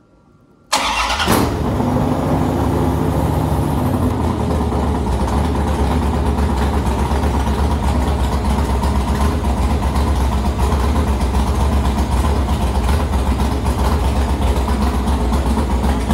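A 383-cubic-inch LT1-based small-block Chevy V8 on an engine run stand fires up about a second in and runs through open tube headers, the revs easing down over the first few seconds after it catches and then holding a steady idle. It is starting on a base tune for a pre-dyno test.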